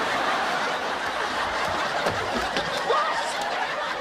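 Sitcom studio audience laughing steadily, many voices together.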